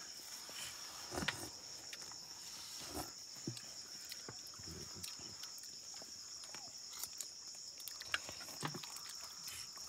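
Steady high-pitched chirring of night insects, with a few light clicks of a metal spoon against a metal cooking pot as soup is ladled.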